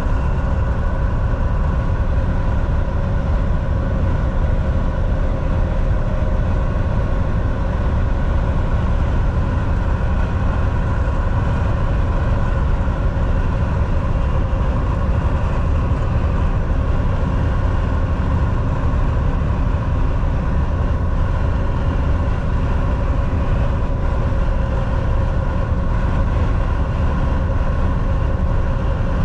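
Semi truck driving, a steady low rumble of engine and road noise that stays even throughout.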